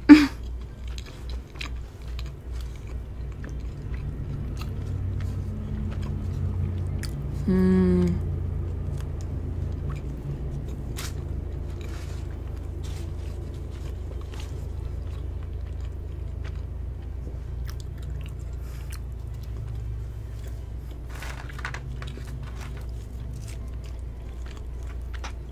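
Close-miked chewing and biting of a fast-food burger and fries, with many small wet mouth clicks. A short hum of the eater's voice comes about eight seconds in.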